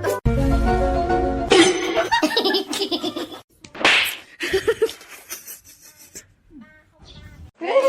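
Background music, broken by a few seconds of short bursts of human laughter, with music coming back near the end.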